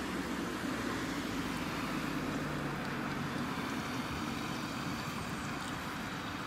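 Diesel engines of a ROPA self-propelled beet harvester and an accompanying tractor running steadily under working load, a continuous low engine hum with the harvester's machinery noise over it.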